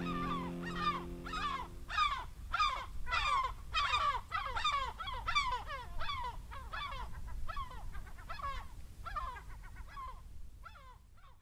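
Gulls calling in a long run of short, downward-sliding cries, about three a second, that fade away near the end.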